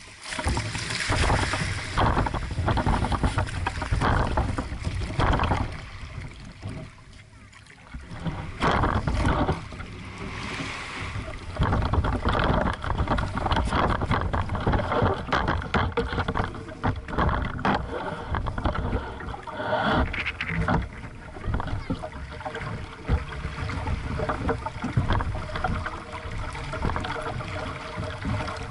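Small sailing dinghy's hull splashing and slapping through shallow surf and chop as it gets under way, with a rumble of wind on the microphone. There is a brief quieter stretch about seven seconds in.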